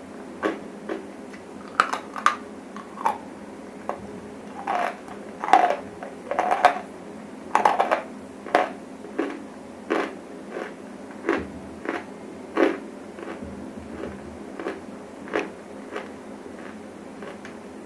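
Close-miked biting and chewing of dry grey clay chunks: a run of sharp crunches, about one or two a second, loudest and most crowded in the middle, thinning to softer crunches near the end.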